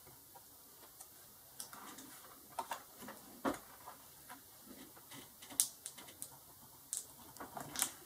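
Irregular small plastic clicks and taps as fingers work cable connectors and plastic parts loose inside a laptop's opened case. They start about a second and a half in, with the sharpest near the middle and a quick cluster near the end.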